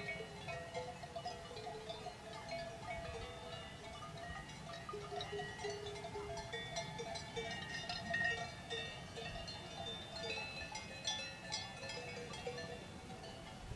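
Cowbells on a grazing cattle herd, many bells of different pitches clanking and ringing irregularly and overlapping.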